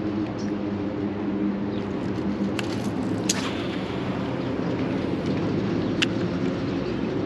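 Wind rushing over the microphone with a steady low hum underneath, and a few sharp clicks, the loudest about three seconds in.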